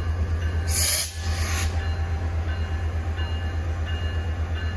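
Diesel passenger locomotive rumbling steadily at a low pitch while the trains stand in the station, with a short burst of hiss about a second in.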